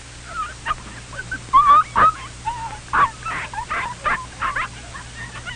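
Six-week-old puppies yipping and whimpering: a quick run of short, high-pitched yelps and whines, starting about half a second in.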